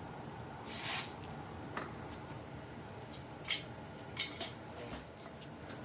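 Compression tester on an engine cylinder being released after a reading: a short hiss of escaping air about a second in, followed by a few light clicks and taps of the gauge and hose being handled.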